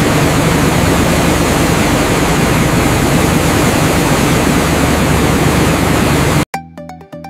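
Industrial machinery running with a loud, steady noise over a low hum. It cuts off abruptly near the end, and electronic music with a regular beat takes over.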